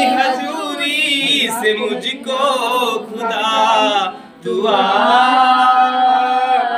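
Voices singing a Christian praise song (stuti) to Jesus, a chant-like melody. A brief pause comes a little past halfway, then a long note is held.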